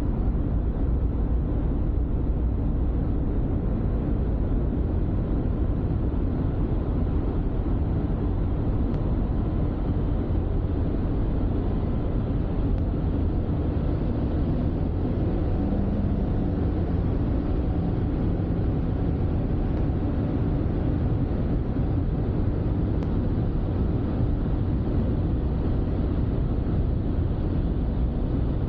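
Steady low road and engine rumble of a car driving, heard from inside the cabin, with an even level and no changes.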